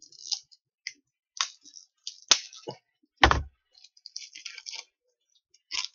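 Crinkly plastic gum packaging being worked and torn open by hand: irregular crackling with a few sharp cracks, and a dull knock about three seconds in.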